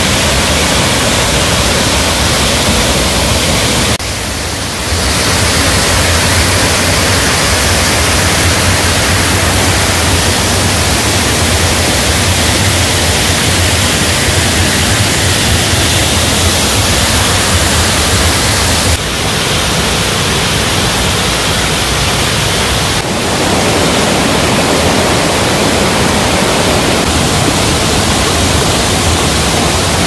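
Waterfall plunging into its pool and running over rocks: a loud, steady rush of white water, dipping briefly about four seconds in.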